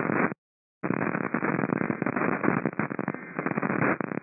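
Radio static: a dense hiss full of crackle, with no speech, cutting out completely for about half a second near the start.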